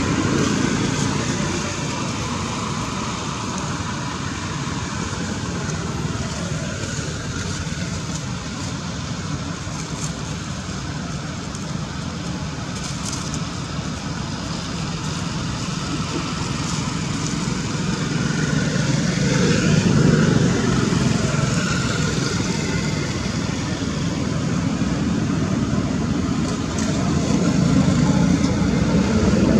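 Steady background rumble of motor traffic, growing louder about two-thirds of the way in and again near the end as vehicles pass.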